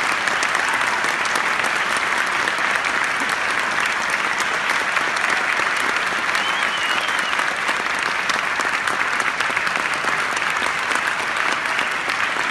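Audience applauding steadily, a dense clapping that holds at one level.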